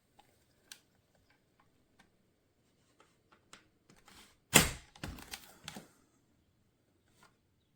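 Scattered plastic clicks and knocks from handling the Kenmore cordless stick vacuum, just switched off, with a louder burst of clattering about four and a half seconds in.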